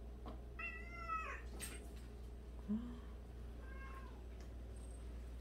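Domestic cat meowing twice: a high, slightly arching meow about half a second in and a shorter one near the end. A brief low sound about halfway through.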